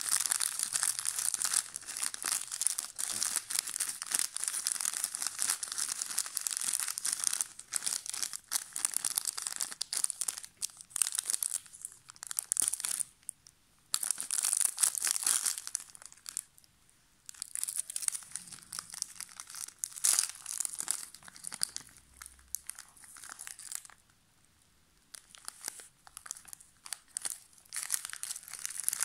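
Crinkly plastic snack wrappers being handled and squeezed, crackling in spells broken by a few brief pauses.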